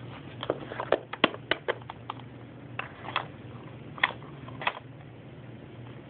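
Small plastic toy figures and pieces being handled: a run of sharp clicks and taps in two clusters, over a steady low hum.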